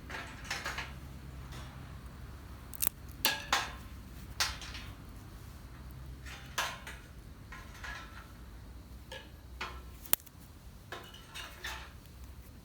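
Irregular clinks and clatters of camp cookware and utensils being handled, with one sharp click about ten seconds in.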